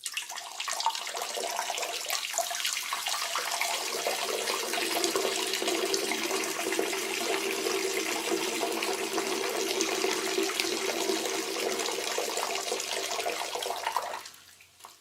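A person urinating: a steady stream of liquid splashing into water, tapering off about fourteen seconds in, with one last short spurt near the end.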